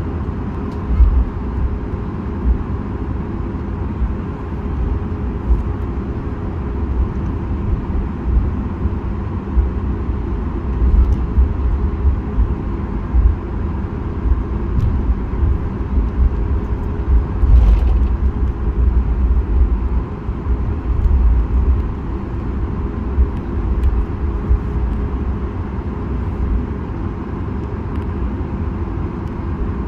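Cabin noise of a Boeing 737 MAX 8 taxiing, heard beside its CFM LEAP-1B turbofan: a steady engine hum with a faint held tone over a low rumble from the wheels, with occasional bumps as the gear rolls over the slab joints.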